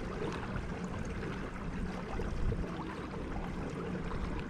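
Steady rush and gurgle of water along the hull of a motor-driven fishing kayak cruising on calm saltwater.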